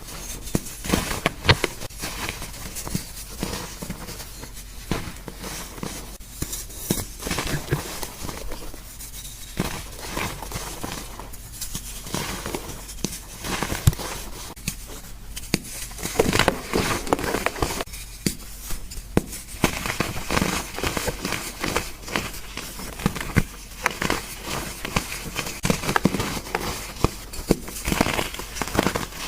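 Gym chalk being crushed by hand: continuous irregular crunching and crackling with many sharp snaps.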